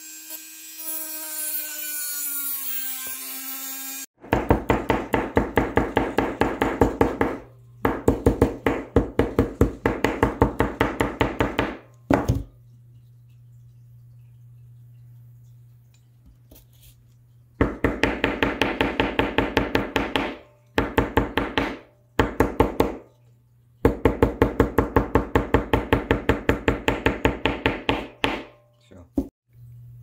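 A rotary tool with a small cutting disc whines as it cuts sheet metal, its pitch dipping under load, for about four seconds. Then come bursts of quick, even strokes of a hand tool working metal, about five a second and lasting several seconds each, separated by short pauses with a steady low hum.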